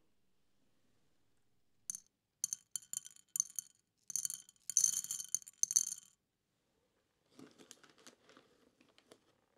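Dried beans dropped into a shallow dish, rattling and clicking against it and each other. Several short clusters come from about two seconds in, the loudest around four to six seconds, then fainter scattered clicks near the end.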